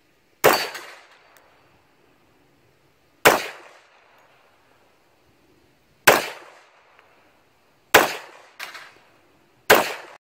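Semi-automatic pistol fired six times, the first three a few seconds apart and the last three quicker, a pair only about half a second apart near the end. Each shot is followed by a short echo.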